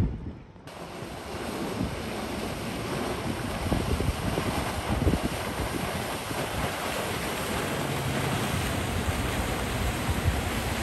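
Wind buffeting the microphone and the rush of sea water from a motor yacht running at speed, its bow throwing spray and a wake; the noise starts abruptly a moment in. A faint low engine hum shows briefly near the end.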